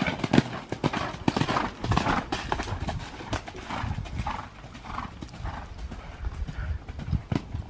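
Hoofbeats of a horse cantering on the damp dirt footing of an arena, an uneven run of thuds.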